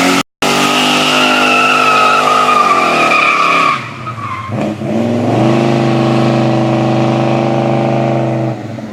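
A car with a 355 V8 doing a burnout: the engine is held at high revs while the tyres squeal for almost four seconds, then the revs fall. About five seconds in the engine is revved up again and held steady, and it drops off sharply near the end.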